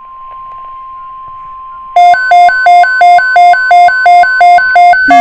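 NOAA weather radio sounding an alert: a faint steady tone, then from about two seconds in a loud alarm of rapidly alternating two-pitch beeps, about three a second, signalling that a watch or warning (here a tornado watch) is being broadcast.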